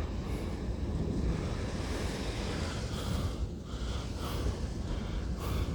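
Wind and heavy rain of a severe thunderstorm, a steady rushing noise that swells and eases.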